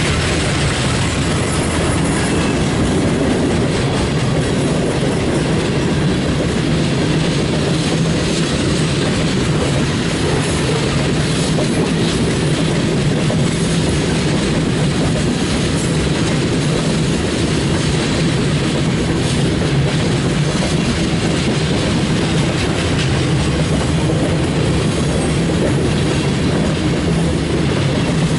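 Freight train's boxcars and refrigerator cars rolling past close by: a steady, loud rumble of steel wheels on the rails with clickety-clack from the wheels crossing the rail joints.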